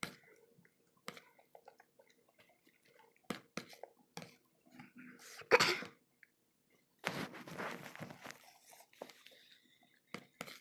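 Person chewing and crunching a mouthful of chili-laden mixed vegetables, with scattered wet mouth clicks. About seven seconds in comes a longer hiss lasting about a second and a half.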